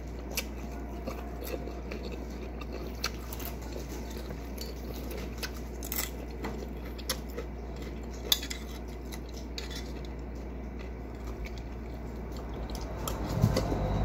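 Metal spoon clinking and scraping against a ceramic bowl in scattered, irregular clicks as it stirs and scoops, with louder eating sounds near the end.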